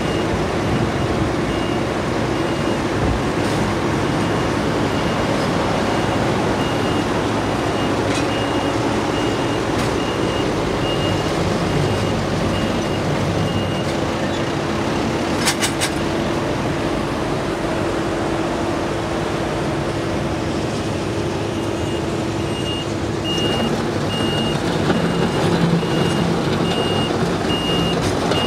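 Heavy diesel road-construction machinery, an asphalt milling machine and a wheel loader, running steadily with a constant hum. A backup alarm beeps at an even pace, stops for several seconds past the middle, then starts again, and there is a short burst of clatter about halfway.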